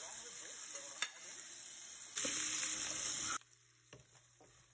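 Chopped red onions, butter and oil sizzling in a hot stainless steel pan while the onions are stirred, the onions sweating. The sizzle grows louder for about a second, then drops away suddenly about three and a half seconds in.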